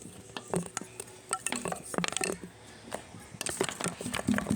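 Clinking and clattering of small hard objects being handled: a run of short sharp clicks and knocks, some with a brief ring.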